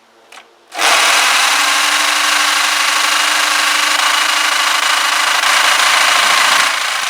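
Electric drill spinning over the small petrol engine of a Clarke pressure washer to crank it, starting a little under a second in and running steadily, easing slightly near the end.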